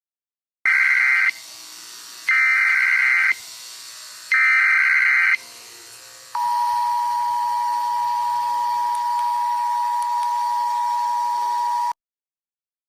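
Emergency Alert System alarm: three short bursts of data-header tones, each about a second long with faint hiss between them. A steady two-tone attention signal follows, held for about five and a half seconds before it cuts off abruptly.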